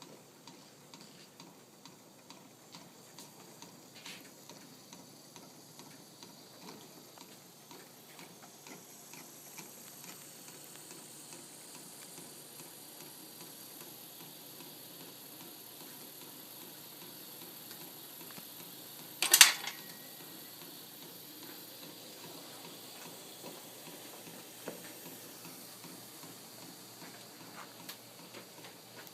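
Small homemade Stirling engine running on its heat source, with a light rhythmic ticking from its model-airplane power piston and flywheel. The ticks come about one and a half a second at first, then crowd together into a steady rapid whir as the engine speeds up. There is one loud sharp click about two-thirds of the way through.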